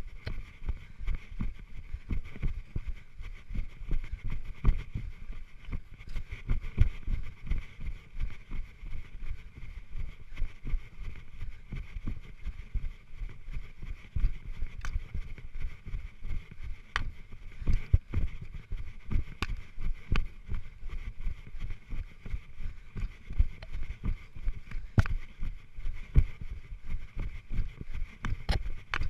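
A runner's footfalls and body jolts on a forest trail, picked up by a body-worn GoPro Hero 3 as a steady rhythm of low thumps, with a few sharp clicks.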